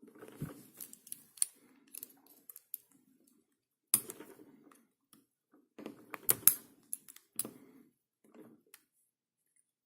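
Small metal clicks, taps and scrapes of tools working a lock cylinder to remove the C-clip from the core, irregular, with the sharpest clicks about four seconds in and again after six seconds.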